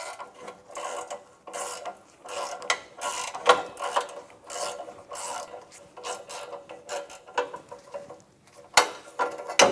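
Socket ratchet clicking in short, irregular runs of strokes as it backs off an exhaust flange nut.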